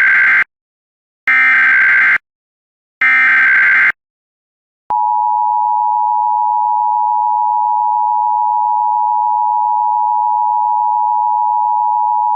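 Emergency Alert System activation: three short bursts of SAME digital header data about a second apart, the first already under way. About five seconds in, the steady two-tone EAS attention signal (853 and 960 Hz) starts.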